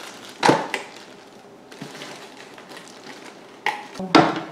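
Sharp knocks of a hard plastic blender pitcher against the counter, one about half a second in and two near the end, with faint plastic-bag rustling between them as the pitcher is unwrapped and set down.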